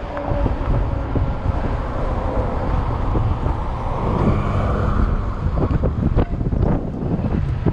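Heavy wind buffeting the microphone of a fat-tire e-bike moving at speed, with the bike's rolling noise underneath.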